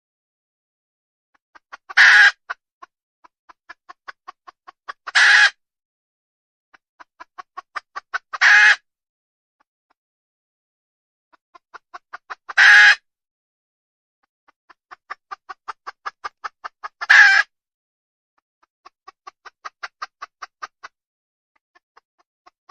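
Desi (Indian village) hen cackling. Runs of short clucks speed up and build into a loud, drawn-out squawk, five times over, with a last run of clucks near the end.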